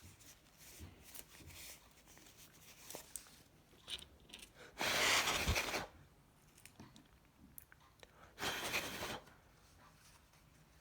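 Small clicks and taps of plastic mobile-phone housing parts being handled, with two rough bursts of noise, each about a second long, around the middle and about nine seconds in.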